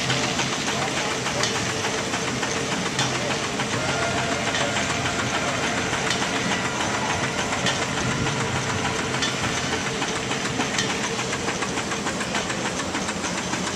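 Steam traction engine running steadily: a fast, even mechanical beat over a constant hiss of steam.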